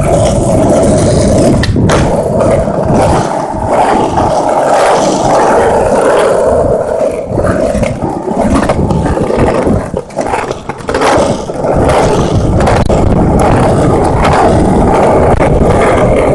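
Skateboard wheels rolling over pavement: a loud, continuous rumble with many short clicks, easing briefly about ten seconds in.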